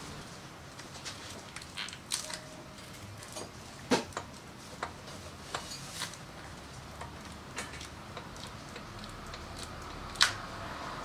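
Irregular metal clicks, clinks and knocks of hand tools and parts while a Harley-Davidson Shovelhead engine and transmission are being assembled into a frame. Two sharper knocks stand out, about four seconds in and near the end.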